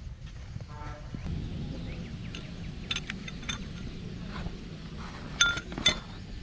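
A few light clinks, the two loudest close together near the end with a brief ring, over a low steady rumble.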